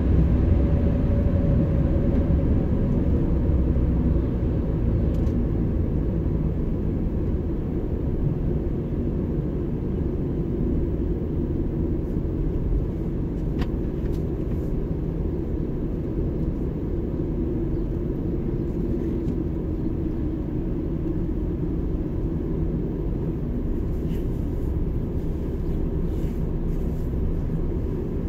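Car driving on an asphalt road, heard from inside the cabin: a steady low rumble of engine and tyres, easing slightly after the first few seconds.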